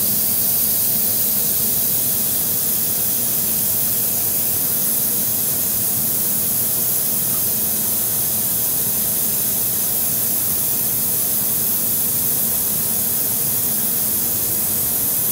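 Vacuum brake bleeder running with a steady hiss, drawing old brake fluid out through the open rear caliper bleeder nipple.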